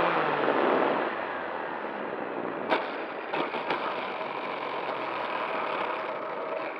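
Onboard sound of an RC SuperCub's Turnigy XP 3536 brushless outrunner motor and propeller winding down as the throttle is cut in the first second. The small plane then touches down on asphalt and rolls, with a few sharp knocks about three seconds in and rushing air and wheel noise throughout.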